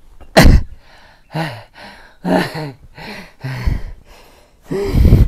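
A person's voice in short separate bursts: brief words and breathy exclamations, with the loudest about half a second in and near the end.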